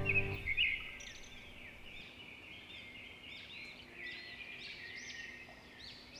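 Birds chirping with many short, high-pitched calls, some sliding in pitch. Background music cuts off about half a second in.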